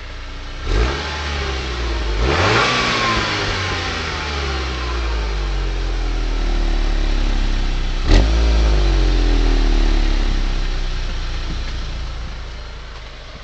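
Stock 2010 Volkswagen GTI's turbocharged 2.0-litre four-cylinder engine being revved: a short blip about a second in, a longer rev about two seconds in that falls back slowly, then a sharp rev near eight seconds that winds down toward idle.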